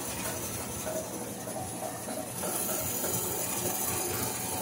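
Dunlap bandsaw test-running on a newly fitted blade: a steady electric-motor hum under a hiss from the blade and wheels. The hiss grows brighter a little over halfway in.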